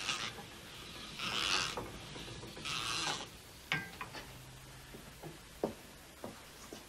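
Hand-turned etching press worked by its spoked star wheel: gears and rollers creaking and grating in three drawn-out strokes about a second and a half apart, then a few sharp clicks and knocks.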